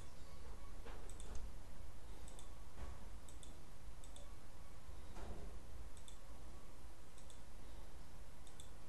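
Computer mouse button clicking, about ten short clicks spaced a second or so apart, as selection windows are picked on screen. A steady low hum runs underneath.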